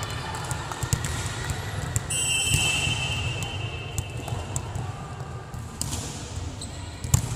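Volleyball referee's whistle, one steady blast about two seconds in lasting about a second and a half: the signal to serve. Near the end comes a single sharp smack, over the light knocks and murmur of the hall.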